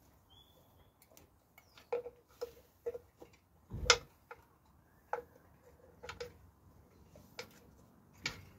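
Long ratchet wrench on the crankshaft bolt of a BMW N47 diesel engine, giving irregular metallic clicks as the handle is worked, with one louder clunk about four seconds in.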